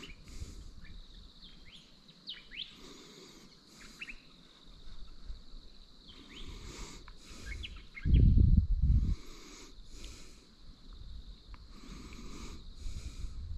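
Small birds chirping with short, quick sliding calls, repeated on and off throughout. About eight seconds in, a brief low rumble, like a gust of wind on the microphone, is the loudest thing.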